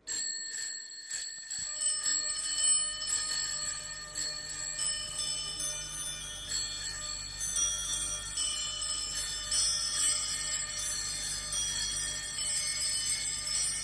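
Bells ringing: many overlapping high ringing notes that start one after another and die away slowly, over a low steady hum.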